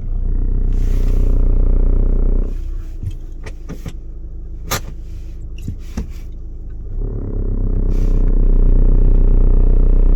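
2013 VW SportWagen TDI's four-cylinder diesel drivetrain droning low under load as the clutch is let out into first gear, twice, each swell lasting a couple of seconds, with a few short clicks in the quieter stretch between. The owner takes the drone for a vibration from the driver's side of the engine compartment, near the wheel well.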